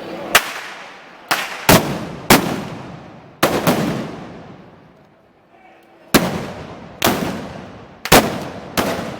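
About ten loud gunpowder bangs at irregular intervals, some in quick pairs, each echoing and dying away over a second or more.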